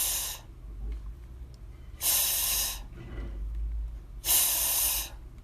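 A voice saying the long voiceless /f/ phoneme, "fff", three times: a short one at the start, then two longer ones about two seconds apart.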